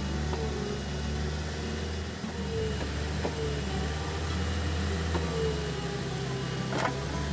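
Skid steer engine running steadily while working a bulldozer blade, its pitch wavering a little, with a few faint clicks and a couple of louder knocks near the end.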